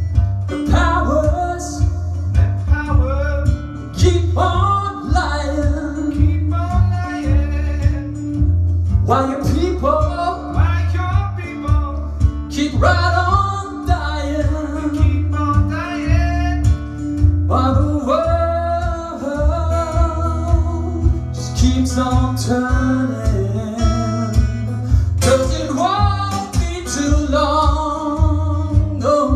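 Male voice singing over acoustic guitar tuned to drop D, with a steady pulsing bass line.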